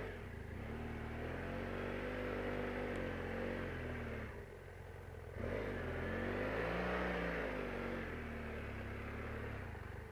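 BMW GS adventure motorcycle engine running at low speed on rough ground, its revs rising and falling slowly. It eases off for about a second just over four seconds in.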